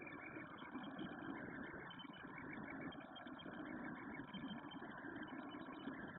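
3D printer running steadily while printing, with a continuous hum of its fans and stepper motors.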